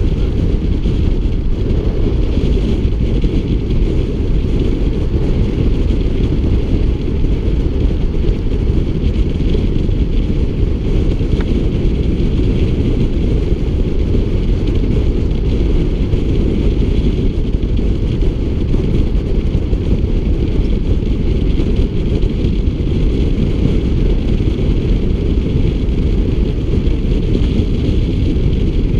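Wind buffeting the microphone of a camera on a bike moving at road-cycling speed: a loud, steady low rumble.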